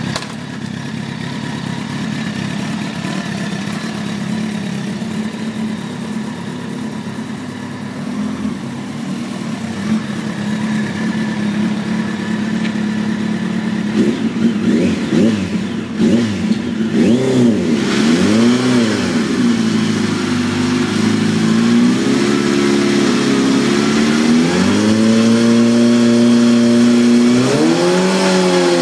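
2004 Kawasaki ZX-10R's inline-four engine idling steadily, then revved in several quick blips about fourteen seconds in, then held at high revs that climb in steps as the rear tyre spins up in a burnout near the end.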